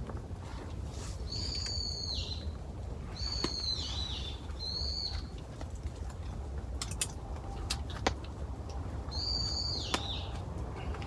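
A wild bird calling four times, each a high call that drops in pitch at the end. Scattered sharp ticks sound over a steady low background.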